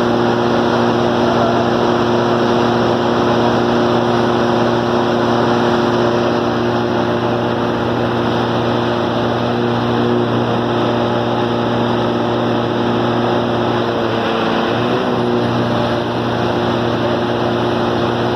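Cummins 6CT inline-six diesel engine running steadily, its pitch wavering briefly about fifteen seconds in.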